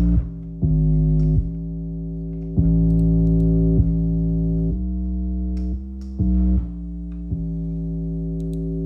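Synthesizer chords of a beat being made in production software, held notes changing every second or so over a deep bass.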